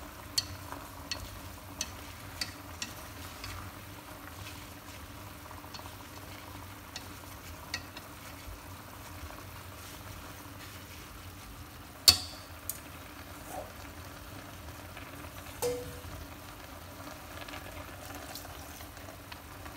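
Mustard greens and fish sizzling in a stainless steel pot while wooden chopsticks stir them, with light clicks of the chopsticks against the pot. There is a sharp metal clack about twelve seconds in and a ringing metal clink a few seconds later.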